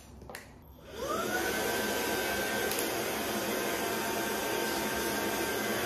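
Proscenic P11 Smart cordless stick vacuum switched on about a second in: its motor whine rises quickly to a steady high pitch over a rush of air drawn through the pet-grooming hose. Two short plastic clicks come just before, as the attachment is fitted.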